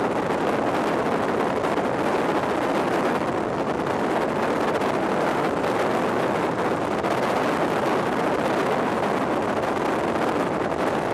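Steady wind rush and road noise inside a moving vehicle driving with a window open, the wind buffeting the microphone.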